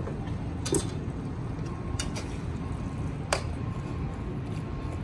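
Metal slotted spatula stirring vegetables through a thickening sauce in a wok, with three sharp clinks of metal on the pan about a second apart over a steady low rumble.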